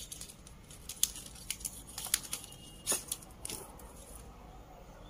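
Hands handling phone-box packaging, a clear plastic phone case and a paper insert, against the box and a tiled floor. A string of sharp clicks and taps over a light rustle, the loudest about one, two, three and three and a half seconds in.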